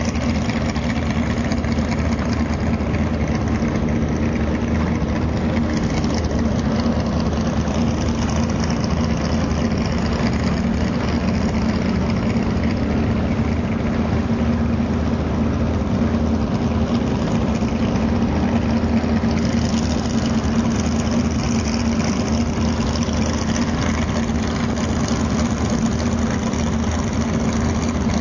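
Big-block Ford V8 of an Eliminator jet boat running steadily at low speed, an even, unchanging engine note.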